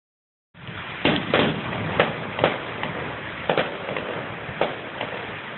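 Fireworks going off: irregular sharp pops and bangs over a steady hiss, starting about half a second in.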